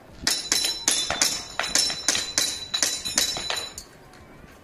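Airsoft pistol fired in a rapid string of about a dozen shots over some three and a half seconds, the pellets hitting a Polish plate rack target with a ringing clink on each hit.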